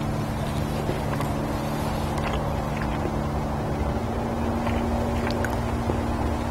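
Steady low motor hum, like an engine idling, with a change in its tones about four seconds in. Over it come faint clicks from chewing and from a fork picking at baked fish flesh.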